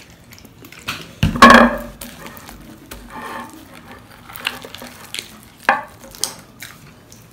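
Hands kneading sticky, not yet fully activated slime in a glass bowl: squelching and small clicks against the glass, with one loud knock about a second in and a sharp click near the end.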